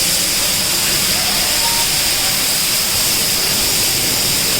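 A steady, loud hiss that does not change.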